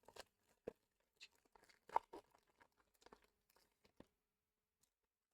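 Pokémon booster pack foil wrapper crinkling and tearing open: a quiet run of small crackles and clicks, the sharpest about two seconds in, that stops about four seconds in.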